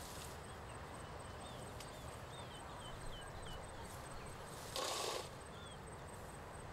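Outdoor ambience: a steady background hiss with faint, quick high chirps scattered through it, a few light knocks, and a short noisy rush lasting about half a second, about five seconds in.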